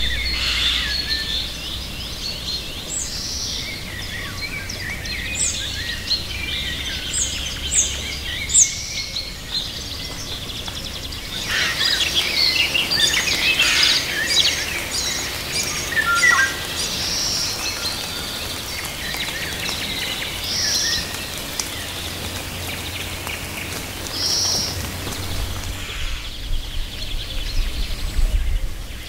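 Several songbirds singing at once in a mix of chirps, whistles and trills, sparse at first and much denser from about a third of the way in. A low steady rumble runs underneath.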